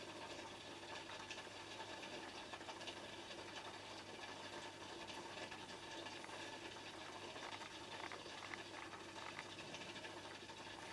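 Faint, steady bubbling and trickling from an aquarium's filter pump, with a low hum and scattered small ticks.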